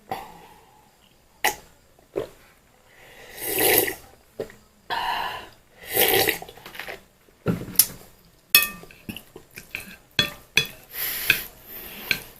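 Close-miked eating of fried instant noodles: bursts of mouth noise from slurping and chewing. Sharp clicks and clinks of metal cutlery on a plate come more often from about seven seconds in, some of them ringing briefly.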